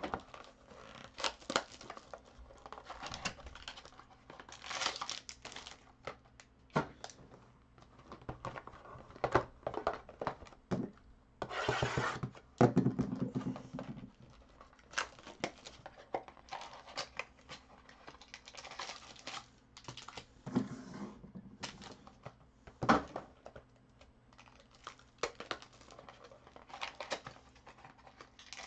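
Trading-card boxes and foil-wrapped packs being handled on a table: irregular taps, slides and crinkling of cardboard and foil, with a few sharper knocks as boxes are set down.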